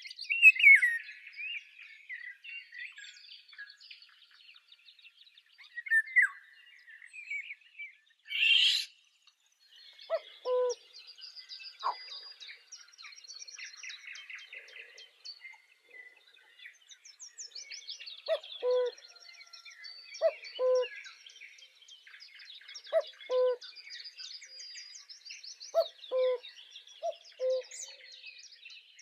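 Mixed birdsong chorus of many high chirps and trills. From about a third of the way in, a low two-note hooting call repeats every two to three seconds. A louder, falling call sounds right at the start.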